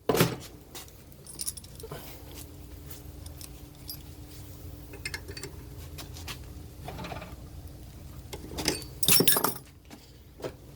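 Metal tools and parts clinking and knocking while an old bushing is worked out of its heated mount: scattered light clinks, with louder knocks at the start and a cluster of them about nine seconds in, over a low steady hum.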